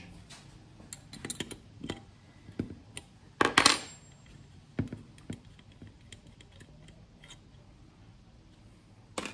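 Metal clinks and taps at a workbench: a steel wrench set down on the bench with a ringing clank about three and a half seconds in, among scattered small clicks of the Evinrude Big Twin 40 carburetor and its parts being handled.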